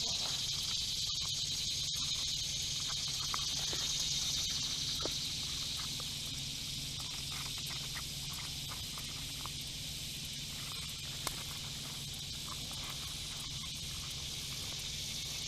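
Steady high-pitched insect chorus droning outdoors, with a few faint clicks and a low hum underneath.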